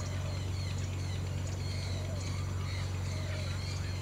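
Several birds giving short, scattered chirps over a steady low hum.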